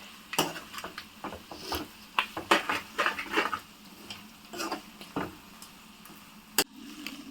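A spoon scraping and clinking against a cooking pan in irregular strokes, stirring goat tripe (boti) fry after chilli powder has gone in. There is one sharp knock against the pan about six and a half seconds in.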